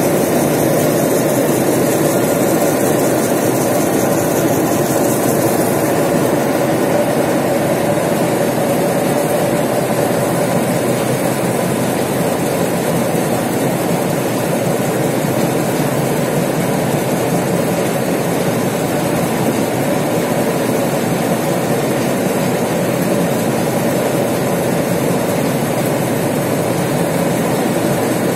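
Steel-plant conveyor belt running over its troughing idler rollers: a loud, steady, unbroken rumble.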